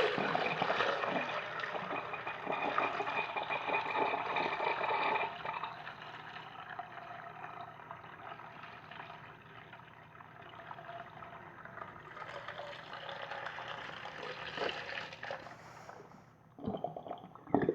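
Clay toilet flushing with plain water: a loud rush of water for about five seconds, then a quieter trickle and gurgle that swells again before dying down near the end.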